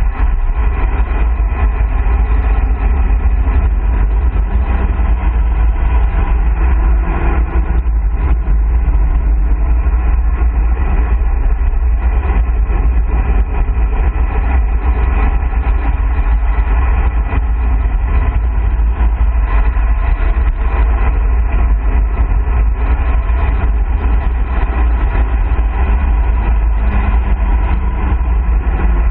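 Wind buffeting the microphone of a handlebar-mounted camera on a road bike descending at about 45–50 km/h, mixed with tyre noise on the asphalt: a loud, steady low rumble.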